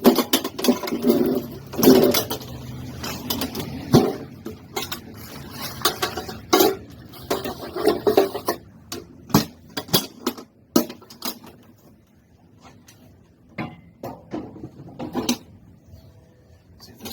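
Small metal car parts and their packaging clinking, clicking and rustling as they are handled. There are many sharp clicks for the first ten seconds or so, then it goes quieter, with a few more clicks near the end.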